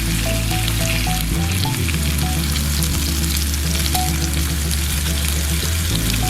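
Pork belly (samgyeopsal) sizzling in its fat on a portable gas grill plate, a steady hiss full of fine crackles.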